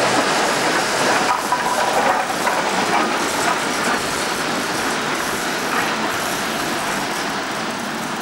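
Two coupled electric shunting locomotives rolling along yard track, wheels clattering over rail joints with a few sharp clicks. The sound fades slowly as they move away.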